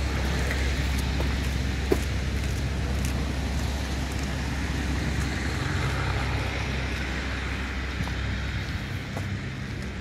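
Road traffic on wet roads: a steady low rumble, with the hiss of tyres on wet tarmac swelling and fading in the middle. A few light ticks are scattered through it.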